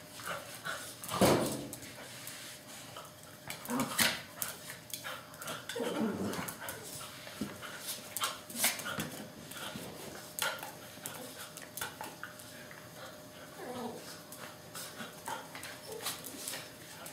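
Small fluffy dog playing excitedly with a toy: short barks and whimpers, loudest a little after the start and about four seconds in, with many sharp clicks from its claws scrabbling on the tile floor.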